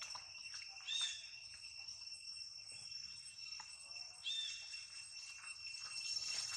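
Two short, high arched squeals from young long-tailed macaques, one about a second in and another past four seconds, over a steady high drone of insects.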